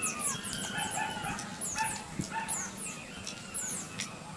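Animal calls: many quick high chirps falling in pitch, a few each second, over lower wavering whining cries, with a couple of sharp clicks near the end.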